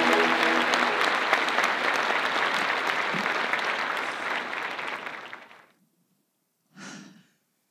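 Audience applauding in a large hall, the clapping dying away about five and a half seconds in. A brief, fainter sound follows about a second later.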